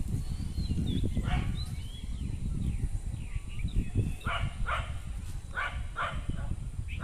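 A dog barking a few times: once about a second in, then two pairs of barks around four and six seconds in, over a steady low rumble. Birds chirp faintly in the first two seconds.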